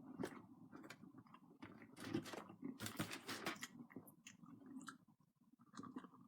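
Faint close-up chewing of a mouthful of burger and fries, with soft wet mouth clicks at an irregular pace and a brief pause about five seconds in.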